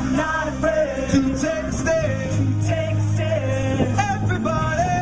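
Rock song with a lead vocal over a steady band: soundtrack music.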